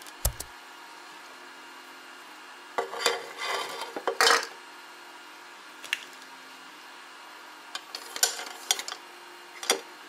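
Glass and hard clear plastic knocking and clinking as a small glass aquarium tank is set down and acrylic pieces and a small pump are placed into it. There is a knock just after the start, a clattering cluster a few seconds in, a single click in the middle and a run of clinks near the end, over a faint steady hum.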